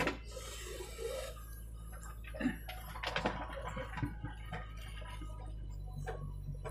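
Diesel engine of a JCB backhoe loader running with a steady low drone while it works, with scattered clicks and knocks as the bucket dumps soil into the trolley and the boom swings back down to dig.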